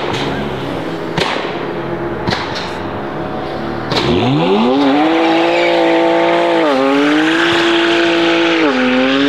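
BMW E92 3 Series coupe's engine running low with a few sharp cracks, then revving up steeply about four seconds in and held at high revs, dipping twice, while the rear tyres spin and squeal in a burnout.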